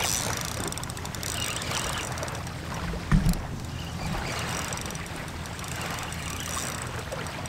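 Steady low wind rumble on the microphone with water noise from the shoreline, and one sharp thump about three seconds in.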